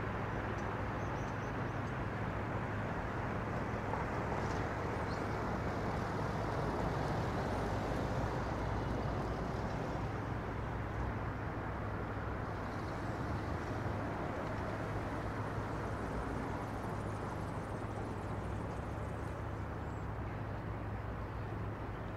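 Steady city street ambience: distant traffic noise with a constant low hum.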